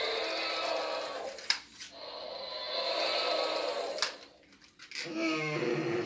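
Toy Tyrannosaurus rex playing recorded dinosaur roars through its small speaker: two long roars, each ending at a sharp click, then a shorter, wavering growl near the end.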